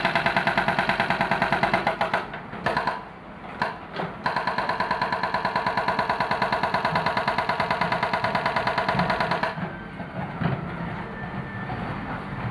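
Diesel engine of a JCB backhoe loader running hard, with a fast, even pulsing. It drops away briefly for a few knocks about two seconds in, picks up again, then changes to a duller, rougher running sound near the end.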